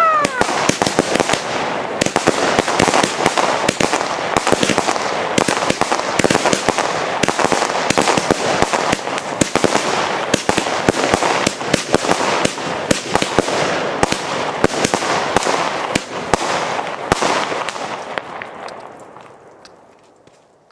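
Nico Monster Fight fireworks battery firing: a dense, continuous rattle of shots and crackling bursts that thins out and dies away over the last few seconds.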